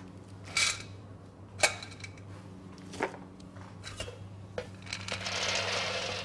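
Whole hazelnuts in a stainless steel bowl: a few sharp clicks and knocks as they are handled, then a rattling rush as they are poured out onto a parchment-lined baking tray near the end, over a steady low hum.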